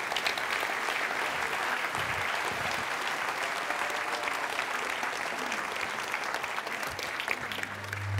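Audience applauding steadily, welcoming a speaker onto the stage.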